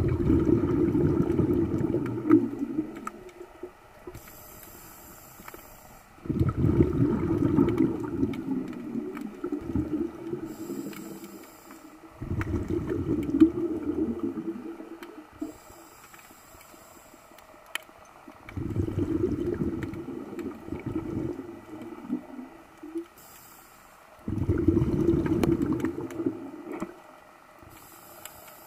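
Scuba diver breathing through a regulator underwater: five rumbling bursts of exhaled bubbles, each about three seconds long, alternating with short hissing inhalations, about one breath every six seconds.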